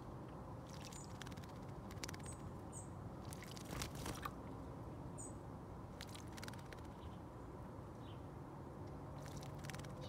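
A European robin bathing in a shallow bird bath, flicking its wings in the water in about five short bursts of splashing, the loudest about four seconds in. A few short, high chirp notes come in between.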